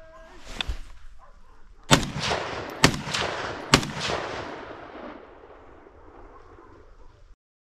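Three shotgun shots fired about a second apart while hunting wild boar, each trailing off in a long echo. The sound cuts off suddenly near the end.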